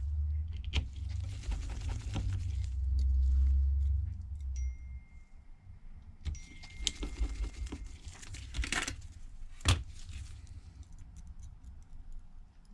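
Small metal screws and a screwdriver clicking and tapping against a phone's frame as screws are put back in, with scattered handling knocks and a low rumble during the first few seconds.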